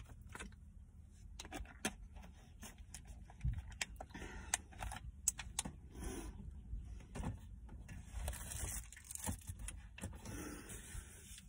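Scattered light clicks, taps and rustling of small objects being handled and moved about inside a car.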